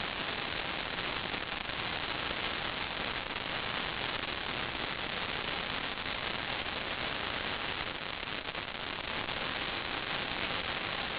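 Steady, even static hiss with no tones or rhythm in it, the noise of an analog FPV video downlink's audio channel.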